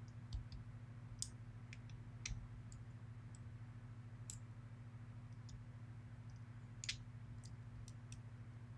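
Faint, scattered small clicks and taps of lock pins and the plug being handled while a pin-tumbler lock is taken apart, with the clearest clicks about a second in, around two seconds and near seven seconds. A steady low electrical hum runs underneath.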